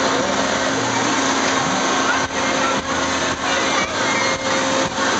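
Cliff Hanger carnival ride running: a loud, steady rushing noise with an even hum underneath, broken by short dips about every half second in the second half.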